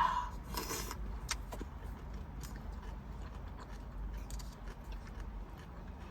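Close-miked eating of crunchy coleslaw: a short crunch near the start, then faint scattered chewing clicks.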